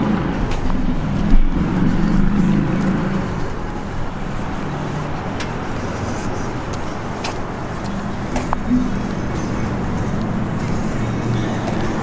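Road traffic and car engines running steadily, with a sharp knock about a second in.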